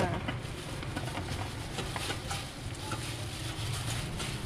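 Crispy fried rice salad being tossed by a gloved hand and a metal spoon in a stainless steel bowl: scattered light clicks and crackles of the crisp rice and spoon against the bowl, over a steady low hum.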